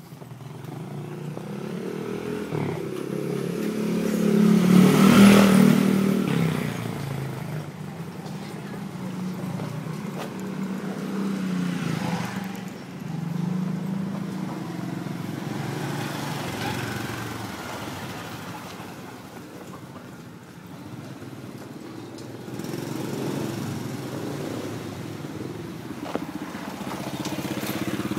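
Small motorcycle engine running, loudest as it passes close about five seconds in, then continuing at a lower level with a few rises and falls.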